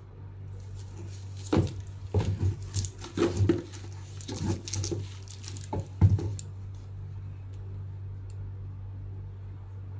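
Handling noises from unboxing a tote bag: a cluster of irregular rustles and soft knocks between about one and a half and six and a half seconds in, over a steady low hum.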